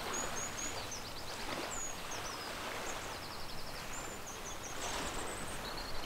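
Outdoor ambience of a steady wind-like rush, with small songbirds calling high above it: several rapid ticking trills and short whistled slurs scattered throughout.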